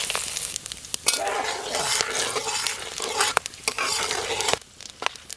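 Whole garam masala spices, bay leaves and dried red chillies among them, sizzling in hot mustard oil in an aluminium karahi as the tempering (phoron) is fried, stirred with a metal spatula that clicks against the pan. The sizzle dies down near the end.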